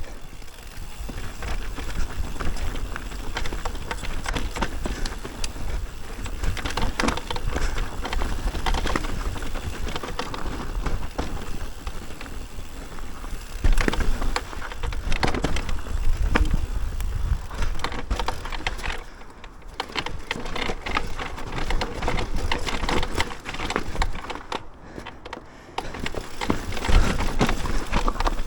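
Mountain bike riding down a rough dirt trail: tyres rolling and crunching over the ground, with frequent knocks and rattles from the bike and a low rumble of wind on the helmet camera.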